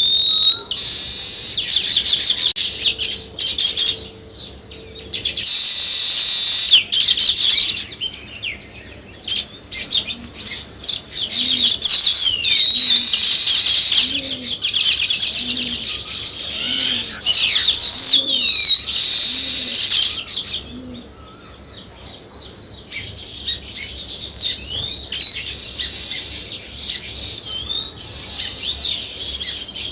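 A flock of sparrows and weaver birds chirping and chattering in a dense, overlapping chorus of high, quick notes. Several louder stretches of massed chatter come and go.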